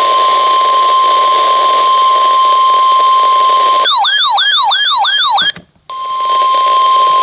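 NOAA Weather Radio's steady 1050 Hz warning alarm tone over radio hiss. About four seconds in it gives way to a warbling electronic alarm that sweeps up and down five times in under two seconds; after a brief drop-out the steady tone comes back.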